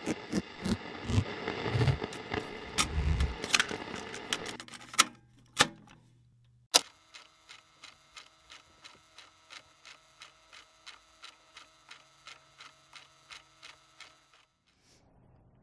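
Mechanical clicking in an intro sound design: fast, even clicks with low thumps under them that slow down, three sharp louder clicks about five to seven seconds in, then a faint, even ticking about twice a second over a steady hum, which stops shortly before the end.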